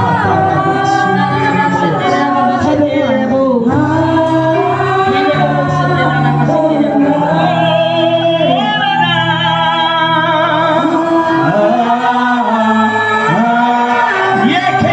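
Gospel song: voices singing together, choir-like, over steady low accompaniment.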